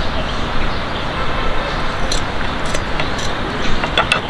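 Steady hum of city traffic, with a few light clicks and knocks from about halfway through to the end.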